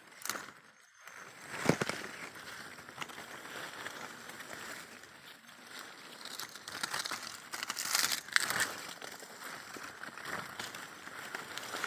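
Coffee leaves and branches rustling and crackling as a gloved hand pushes through them, with scattered sharp clicks and a louder burst of rustling about eight seconds in.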